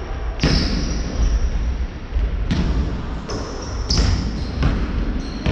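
Basketball bouncing on a hardwood gym floor during play: several sharp, irregular bounces, with short high sneaker squeaks on the wooden court, echoing in a large sports hall.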